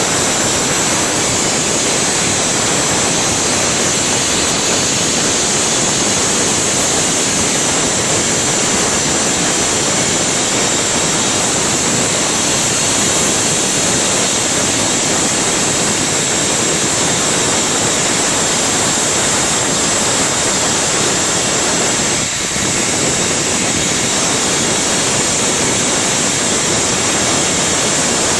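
Glass-blowing lathe burner flame running with a steady loud hiss, with one brief dip in level about three-quarters of the way through.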